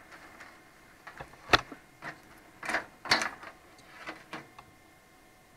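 Small plastic cable ties being cut with snips inside a PC case: a few short, sharp snaps and clicks, the loudest about one and a half seconds in.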